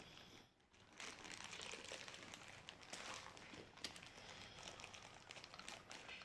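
Faint rustling and small clicks of small plastic toy pieces being handled and fiddled with by hand.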